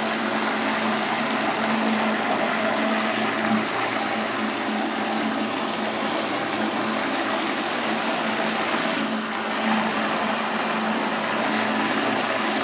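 A strong jet of vinegar solution pours steadily from a faucet into a plastic bucket of foamy liquid, splashing without a break over a steady low hum from the peripheral pump that recirculates it. The powerful jet is the sign that the descaling is clearing the scale-clogged boiler coil.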